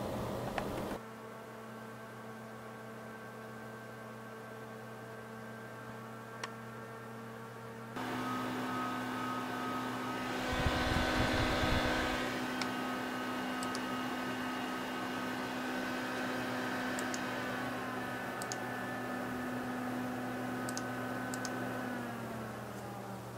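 Corsair H80i liquid cooler's fans and pump running inside a PC case, a steady whirring hum of several tones. It turns quieter about a second in, then louder with added higher tones about eight seconds in; a brief rough rustle and rumble comes around eleven seconds in, and near the end the tones slide down in pitch as the fans slow.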